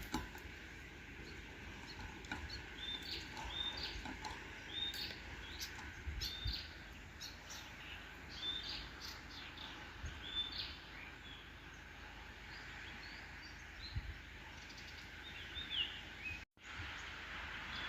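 Birds chirping: many short, repeated calls over a steady background hiss, thinning out after the middle and picking up again near the end.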